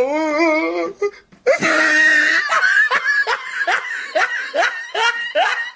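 Loud laughter: a wavering vocal sound in the first second, then after a short break a long run of repeated laughing strokes, about two or three a second.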